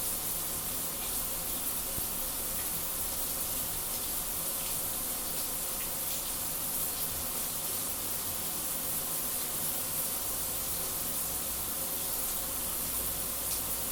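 Shower running steadily, an even hiss of falling spray strongest in the high range. A low hum comes in near the end.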